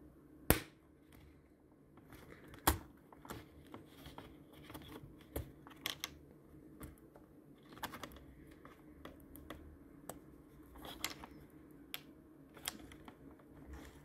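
Plastic clips of a Lenovo Z51 laptop keyboard snapping loose as it is pried up with a plastic pick: two sharp clicks in the first three seconds, then a run of smaller clicks and scrapes.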